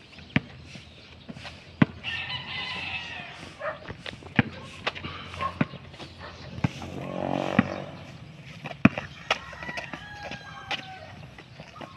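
Basketball dribbled on a concrete street, sharp bounces at an uneven pace. A rooster crows in the background twice.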